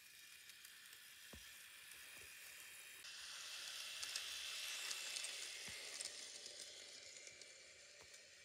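N-gauge Kotoden 1200 series two-car model train running on the track, its motor and metal wheels giving a steady hissing whir with light clicks. The sound grows louder as the train comes near, then fades as it moves away.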